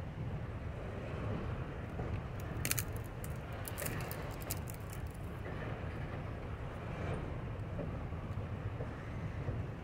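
Freight train rolling past with a steady low rumble, and a run of sharp clicks about three seconds in.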